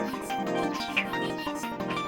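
Background music: an instrumental tune with plucked-string and keyboard notes.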